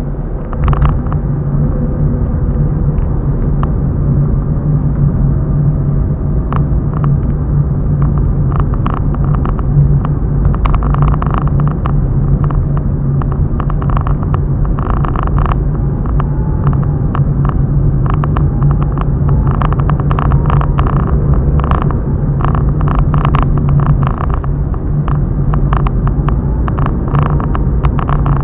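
Car driving on the highway, heard from inside the cabin: a steady low hum of engine and road noise, with frequent short rattles from about eight seconds in.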